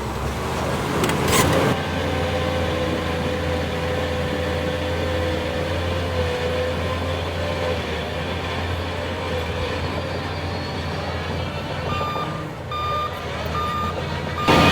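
Heavy earthmoving machine's diesel engine running steadily with a held whine, and a short sharp noise about a second and a half in. Near the end a reversing alarm beeps four times.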